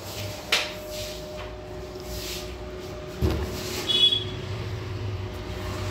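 ATM beeping once, short and high, about four seconds in, over the machine's steady hum. A sharp click about half a second in and a dull knock a little after three seconds come from hands on the machine.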